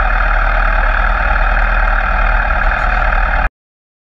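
Steady engine and wind noise from an onboard camera on a vehicle at speed on a race track, cutting off abruptly about three and a half seconds in.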